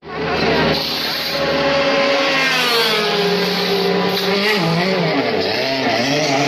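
Race car engines running in the pit lane, their pitch rising and falling as they rev.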